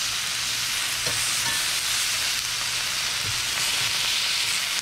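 Pieces of venison backstrap searing in a very hot cast-iron skillet, a steady sizzle, with a few faint knocks as the pieces are turned with metal tongs.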